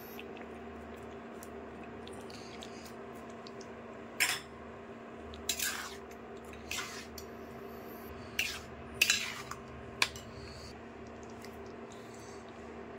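Steel ladle clinking and scraping against a stainless steel pan and bowl as thick curry is stirred and ladled out: about six sharp clinks through the middle, over a steady low hum.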